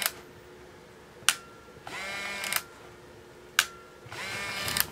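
Olympus Trip AF 50 35mm film camera taking two shots: each time a sharp shutter click, then about half a second later a short whine of its motor winding the film on to the next frame, rising slightly in pitch.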